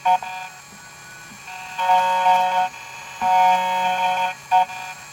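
CNC key cutting machine whining as it cuts an HY22 key blank. The steady pitched whine starts and stops in runs of about a second, with brief blips between them, as the machine moves through the cut.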